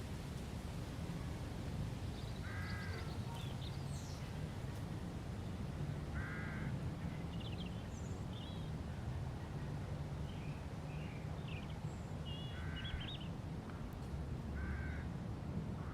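Outdoor ambience with birds: a larger bird gives a short call four times, spaced a few seconds apart, while small birds chirp briefly in between, over a steady low rumble.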